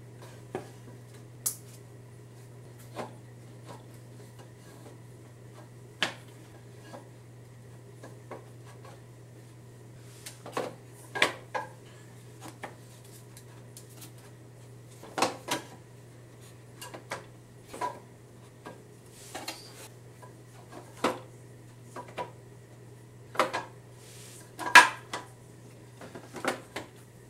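Plastic-cased nickel-metal hydride modules of a 2nd-gen Toyota Prius hybrid battery knocking and clacking as they are pushed into line on the pack tray, in scattered single knocks and short clusters, the loudest near the end. A steady low hum runs underneath.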